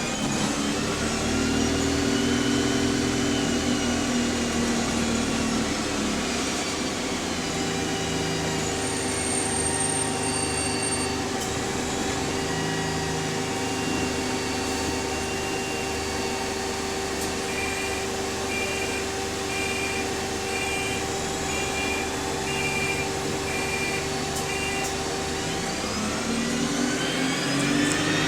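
Bus with a Voith automatic gearbox slowing with a falling whine, then idling with a steady hum while a high warning tone beeps about once a second for several seconds. Near the end the engine and gearbox whine rise as the bus pulls away.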